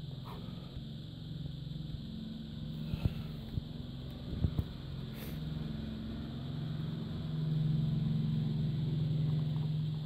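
A low steady hum that grows louder near the end, with a few light clicks and knocks around the middle from cables and a connector being handled.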